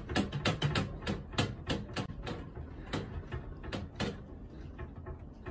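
A room's contents rattling and clicking as an earthquake shakes the building: quick, irregular knocks, dense at first and thinning out to a few separate clicks after about two and a half seconds, as the shaking dies down.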